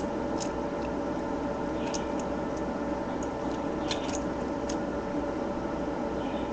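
Scattered small plastic clicks and creaks of a solar walker toy being pried apart by hand, over a steady background hum.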